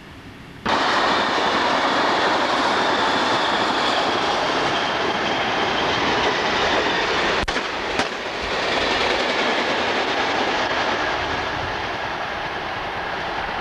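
Double-deck V set electric interurban train passing at speed close by: a steady rush of wheels on rail with a faint high whine, starting abruptly under a second in and easing slightly near the end. Two sharp clicks near the middle.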